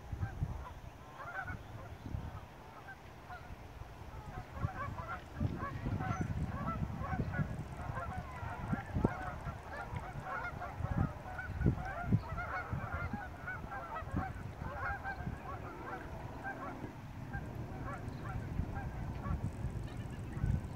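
Geese on the lake honking, a dense run of many short overlapping calls that thickens in the middle, over a low rumble with occasional sharp thumps of wind or handling on the microphone.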